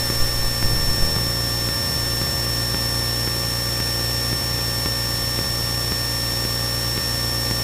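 Cessna 172N's four-cylinder Lycoming engine droning steadily in cruise flight, heard from inside the cabin, with a thin steady high whine over it. A few light knocks in the first second.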